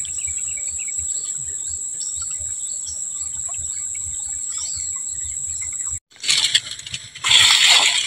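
Steady high-pitched insect drone with faint scattered bird chirps. It breaks off about six seconds in, and a loud burst of noise follows near the end.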